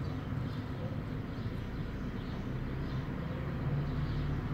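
Motor oil pouring in a steady stream from a jug into a cut-off plastic bottle used as a funnel, heard faintly over a steady low mechanical hum.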